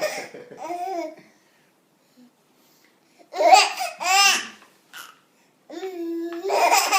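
A baby laughing and babbling in short high-pitched bursts, loudest about three and a half to four and a half seconds in, with a held voice near the end.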